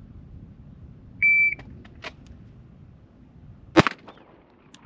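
A shot timer gives a short steady start beep, then about two and a half seconds later a single pistol shot from a Springfield Armory Prodigy is fired on the draw.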